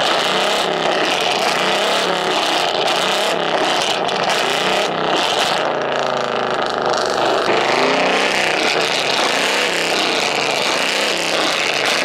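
Ford Mustang's exhaust, loud, revving hard again and again at a standstill, with sharp pops and crackles in the first half as it spits flames from the exhaust tip.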